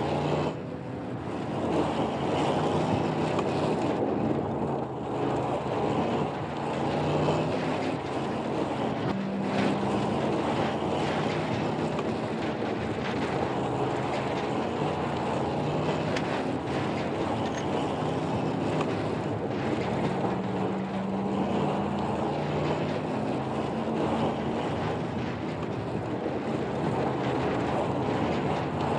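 Pickup truck engine running hard at speed, its pitch rising and falling, under a heavy rush of wind and road noise, with a few faint knocks.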